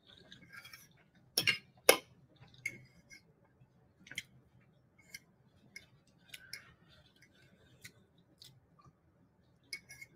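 Metal fork clicking and scraping against a ceramic plate while scooping up noodles: a string of small sharp clinks, the two loudest about a second and a half and two seconds in.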